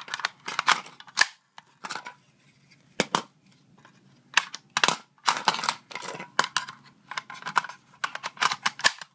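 A series of sharp metallic clicks and clacks in irregular clusters as an AR-15's magazine is released with a bullet-button tool, pulled out, and a ten-round metal magazine is pushed back into the magwell.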